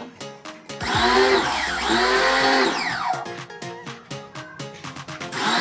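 Background music with a steady drum beat and a gliding, pitched melody.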